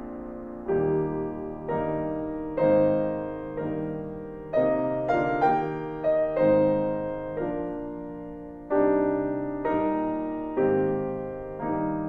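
Solo piano playing a slow, gentle piece: notes and chords struck about once a second, each left to ring and fade before the next.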